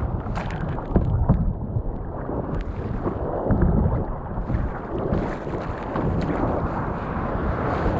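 Wind buffeting the microphone over water rushing and splashing around a fishing kayak's hull as it is paddled out through surf, with the occasional sharper splash.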